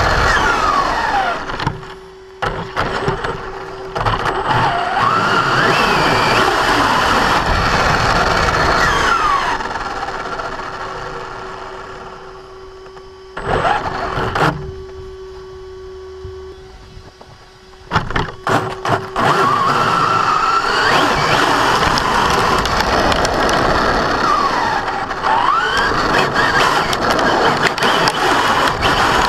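Brushless motor and drivetrain of a 1/10 electric RC monster truck whining up and down in pitch as it accelerates and slows again and again, over a rough grinding noise, with a quieter lull in the middle and a few sharp knocks. The grinding comes only under acceleration and not in reverse or with the wheels off the ground, and persists after the pinion-to-spur gear mesh was reset.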